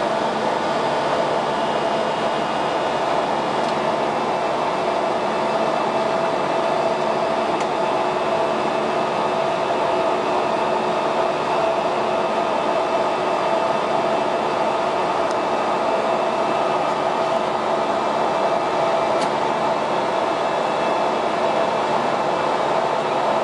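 Steady cockpit noise of an Airbus A340-300 in flight: an even rush of air with a constant hum and a few steady tones from the aircraft's air conditioning and engines, unchanging throughout.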